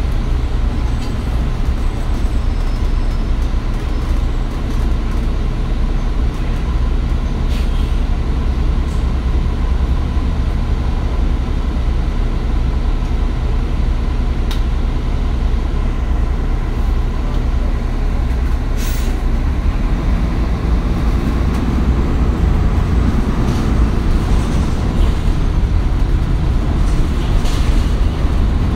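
Inside a 2015 Nova Bus LFS under way: the Cummins ISL9 diesel engine's steady low drone with road noise, broken by a few sharp clicks and rattles, and growing a little louder after about twenty seconds.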